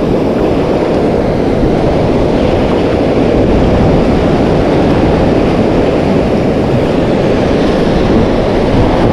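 Steady low roar of wind buffeting the microphone, mixed with breaking surf.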